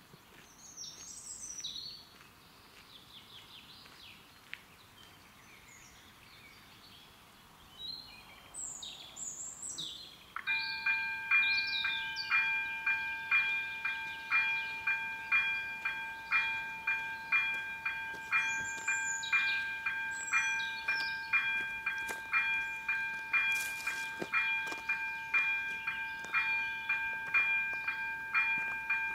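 Electronic warning bell of an AŽD 97 level-crossing signal switching on about a third of the way in and ringing a repeated bright ding about one and a half times a second, signalling an approaching train. Birds chirp before it starts.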